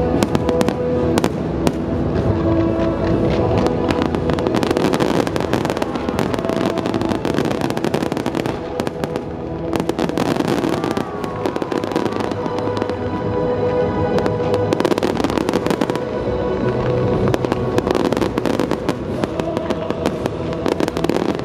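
Fireworks bursting and crackling in rapid, dense volleys, with a steady music track playing underneath.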